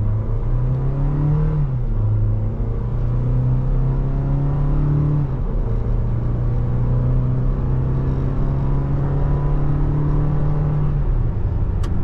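2023 Toyota Tacoma's 2.7-litre four-cylinder engine, heard from inside the cab, pulling hard under acceleration in ECT Power mode. The pitch climbs, drops at an upshift about two seconds in, climbs again to a second upshift about five seconds in, then climbs slowly to a third shift near the end. ECT Power lets the automatic hold each gear to higher revs before it shifts.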